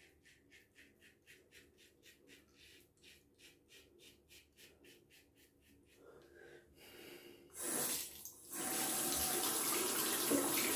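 A 1946–47 Gillette Aristocrat safety razor scraping through lather and a day's stubble in quick, short strokes, about five a second. About seven seconds in the strokes stop and a bathroom tap runs loudly into the sink as the razor is rinsed.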